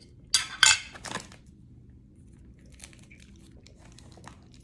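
Food packaging being handled and torn open: three sharp crinkling rips in the first second or so, then faint rustling.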